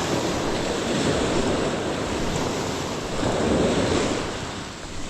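Surf washing onto a beach, swelling to its loudest about three seconds in and then falling away, with wind buffeting the microphone.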